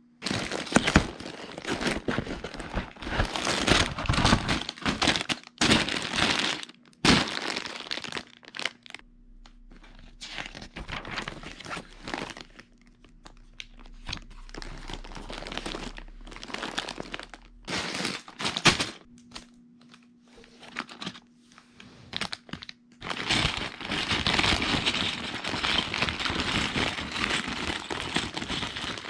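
Clear plastic bags of LEGO bricks crinkling and rustling as they are handled, with the pages of a paper instruction booklet being turned. The handling comes in bursts: dense for the first several seconds, sparser separate crackles through the middle, and dense again near the end.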